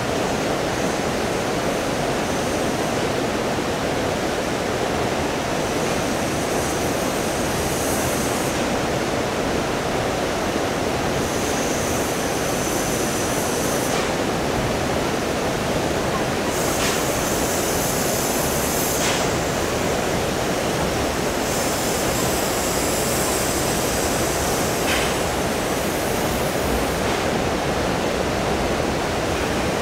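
Steady rush of river water. A high hiss comes and goes over it, and there are a few faint sharp clicks in the second half.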